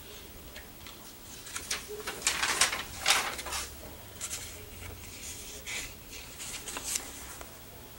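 Paper rustling as sheets are handled and pages turned, with a dense cluster of louder rustles about two to three and a half seconds in and a few lighter rustles and taps after.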